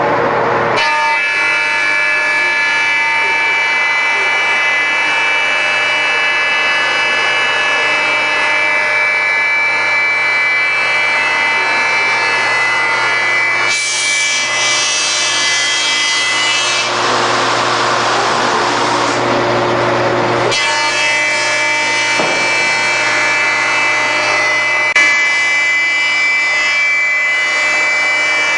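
SY-1300NRR wide belt sander running, a steady machine drone with several high, steady whining tones over it. Midway, a louder rushing hiss joins in for about six seconds, then drops away.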